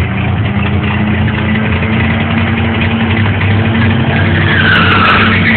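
Car engines running steadily at a race, with a squeal that dips and rises in pitch near the end, like tyres skidding.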